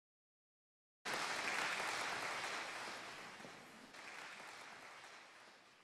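Audience applause, cutting in about a second in and dying away toward the end.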